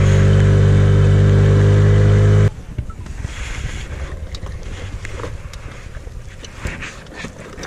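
Inflatable boat's outboard motor running steadily under way, then stopping abruptly about two and a half seconds in. It leaves a quieter hiss of water and wind, with scattered light clicks and knocks of fishing tackle being handled.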